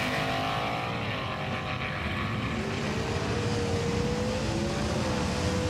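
Race-car engine sound laid over a diecast car race, a steady drone whose pitch rises slowly, over a low rumble.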